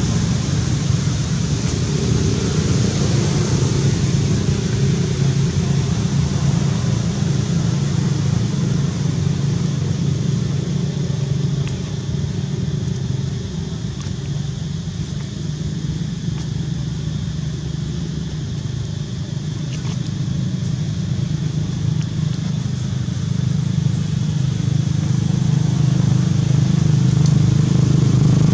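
Steady low drone of a running motor, easing a little in the middle and building again near the end.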